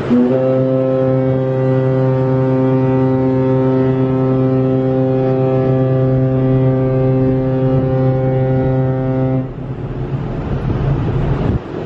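Large car-ferry's ship horn sounding one long, steady blast of about nine seconds, a deep note with many overtones, which cuts off sharply; wind and sea noise follow.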